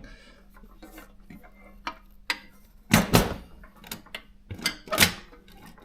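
Mechanical clicks and knocks from a Consul portable typewriter being handled, with two louder clunks about three and five seconds in.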